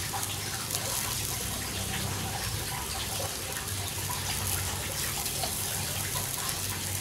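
Turkey breast sizzling on a grill over glowing hardwood charcoal: a steady hiss with a few faint pops.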